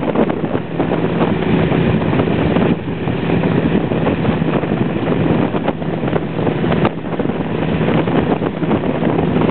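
Motorboats running steadily at speed, with a constant engine drone, water rushing and splashing past the hull, and wind buffeting the microphone.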